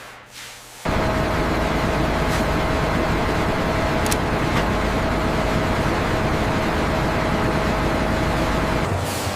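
Steady industrial machinery noise that cuts in abruptly about a second in, with a constant hum tone running through it, holding even until it changes near the end.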